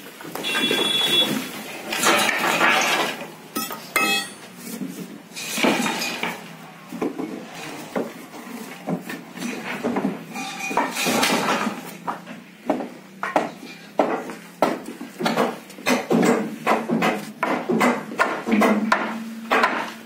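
Clattering and knocking of slab formwork being stripped: wooden planks and props knocked and pulled loose from under the concrete, with metallic clinks. The knocks come irregularly and get quicker and denser in the second half.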